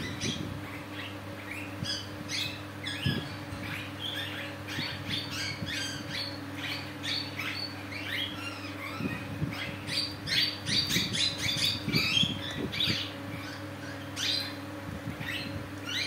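Young parakeets chirping and squawking in quick short calls, loudest and busiest about ten seconds in, over a steady low hum.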